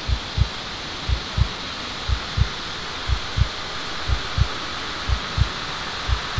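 A heartbeat: paired low thumps, lub-dub, about one beat a second and very regular, over a steady hiss.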